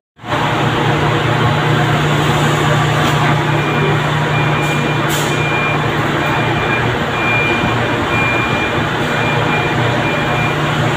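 Steady loud din of sack-loading bay machinery with a low hum. From about three seconds in, a high electronic warning beep repeats roughly every three-quarters of a second.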